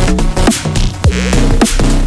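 Electronic music with a fast beat and deep bass hits that slide downward in pitch several times a second.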